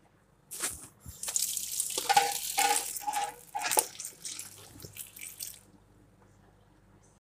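Tap water running onto okra pods in a perforated steel colander inside a metal pot, splashing on the pods and the metal. It starts about half a second in and dies away after about five seconds.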